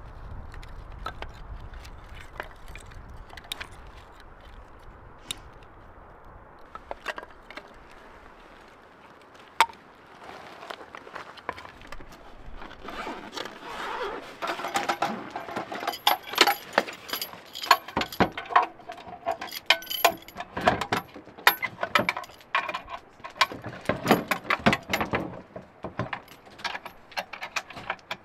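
Camping gear clinking and rattling as it is taken out and handled on a pickup tailgate, a dense run of loud clicks and clinks from about halfway through. Before that comes a quieter stretch of low rumble with a few scattered clicks.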